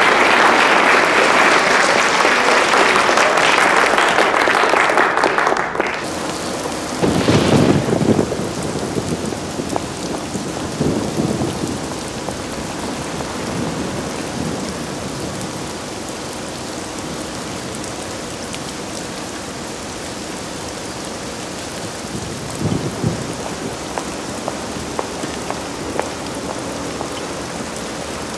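Heavy rain, loudest for the first six seconds and then cut to a steadier, quieter downpour. Thunder rumbles low about seven seconds in, with fainter rumbles later.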